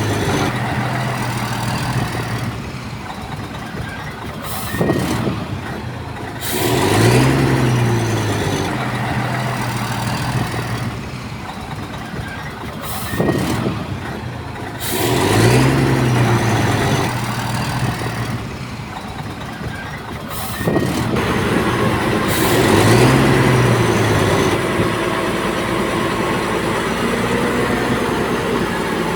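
Heavy diesel engine of earthmoving machinery revving up and dropping back four times, about every seven or eight seconds, with a few sharp knocks in between.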